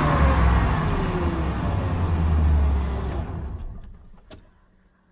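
1997 GM truck's 5.7-litre V8 engine running after being revved, its speed falling back toward idle as the throttle is released. The engine sound drops away about three and a half seconds in, with a single click near the end.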